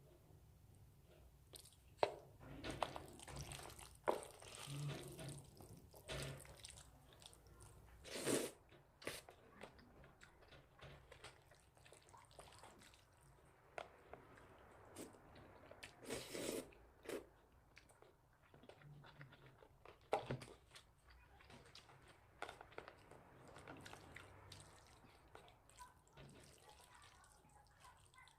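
Close-miked eating: wet chewing, biting and mouth smacks of jjajangmyeon noodles with octopus, in irregular bursts.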